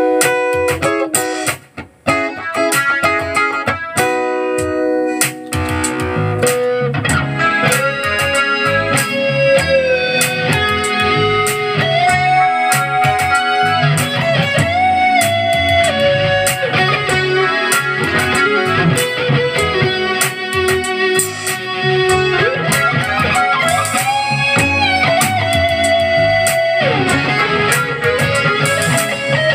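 Stratocaster-style electric guitar playing a lead melody with long held notes and bends. It opens with a few sparse chords and a short break about two seconds in. A fuller accompaniment with bass and drums comes in about six seconds in.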